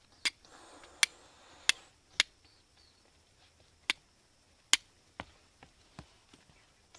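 Flint and steel being struck to throw sparks for a fire: six sharp clicks at uneven intervals over the first five seconds, then three softer ones.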